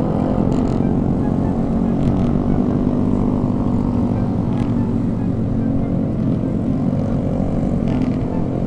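Motor scooter engine running steadily while riding, a constant drone with little change in pitch.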